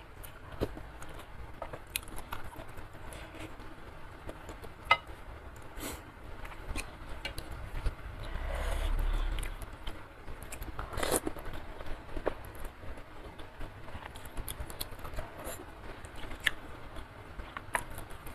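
Close-miked eating of soupy curry instant noodles: chewing and mouth clicks, with wooden utensils tapping the bowl and each other. One longer slurp comes about halfway through, followed by a sharp clack.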